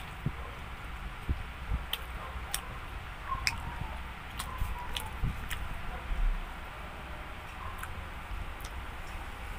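Close-up mouth sounds of someone eating pizza: scattered small clicks and wet smacks of chewing and biting, over a steady low hum.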